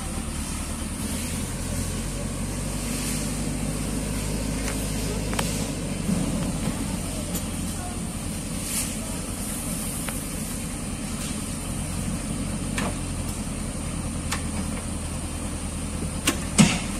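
JCB 3DX backhoe loader's diesel engine running steadily as the machine moves slowly forward, with a few sharp knocks, the loudest two near the end.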